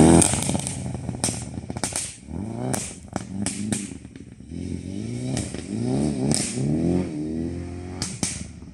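Toyota C-HR rally car driving away along a dirt stage, its engine revving up and dropping back again and again as it changes gear, fading into the distance. Several sharp cracks come in the first few seconds.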